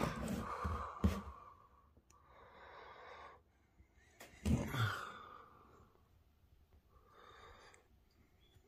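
A person breathing audibly close to the microphone: four noisy breaths of about a second each, roughly two seconds apart.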